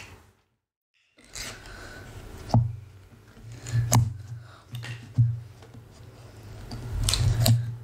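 Close handling sounds of a small foil sachet being torn open and fiddled with over a plastic dip tub: crinkling and rubbing with a few sharp clicks. There is about a second of complete silence near the start.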